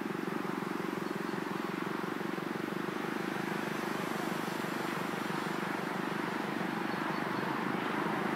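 Miniature railway train running along its track, heard from a riding car: a steady mechanical drone with a fast pulsing rumble through it.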